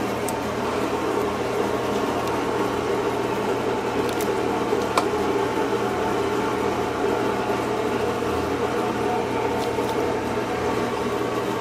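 Steady hum and whir of kitchen machinery in a small dessert-shop kitchen, with a few faint clicks of utensils against the bowl and tray.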